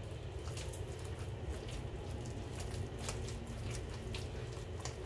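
Hands squishing and kneading soft, sticky dough of vegetable shortening, sugar and eggs in a well of flour, giving soft scattered wet clicks over a low steady hum.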